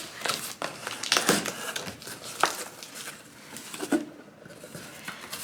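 Paper and plastic packaging being handled while a parcel is unpacked: irregular rustling and crinkling with a few sharp clicks.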